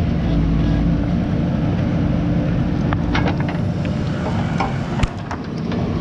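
JCB backhoe loader's diesel engine running steadily, with a few sharp clicks and knocks in the second half; the loudest is a single knock about five seconds in.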